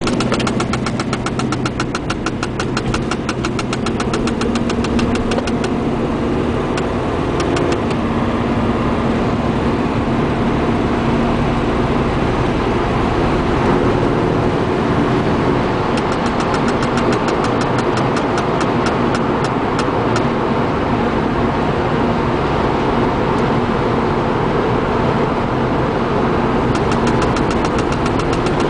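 Car engine idling cold, with a rapid ticking over it that comes and goes in spells: at the start, again in the middle, and near the end. The owner suspects the ticking comes from the cabin's blower fan or heating system rather than the engine.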